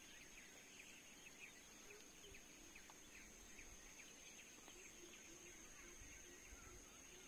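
Faint forest ambience: a steady high-pitched insect drone with many short bird chirps and calls scattered over it.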